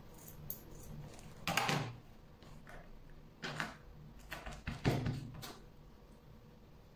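Hands handling scissors and a plastic bowl of hot water on a cutting mat: a few short clatters and rustles, the loudest about a second and a half in and another cluster around five seconds in.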